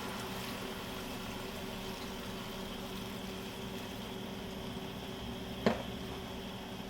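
A pot of chicken noodle soup simmering on the stove: a steady bubbling hiss over a low hum, with one sharp clink a little before the end.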